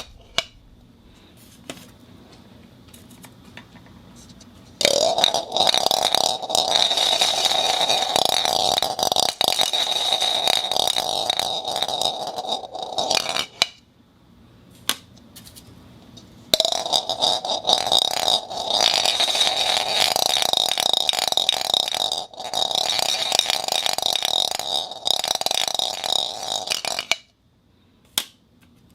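Marbles rolling and rattling around inside a plastic cup: a steady ringing whir with many small clicks, in two long spells starting about five seconds in and again past the middle, with faint clicking between them and a stop shortly before the end.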